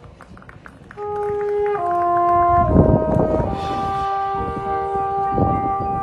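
Marching band performing: after a second of light percussion taps, the brass and woodwinds come in with sustained chords that shift a few times, then hold, under a few deep drum hits.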